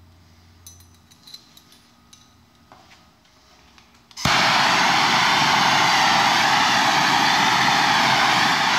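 A few light clicks and taps of metal being handled, then about four seconds in a handheld gas torch comes on all at once and runs with a loud, steady hiss, its flame heating the steel rod.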